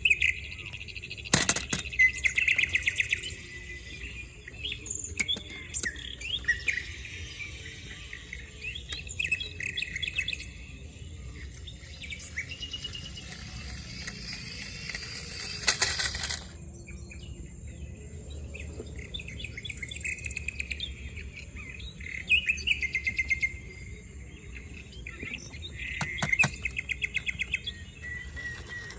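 Small birds chirping in quick repeated trills, over a steady high thin whine like an insect. A short loud rustling burst comes about halfway through.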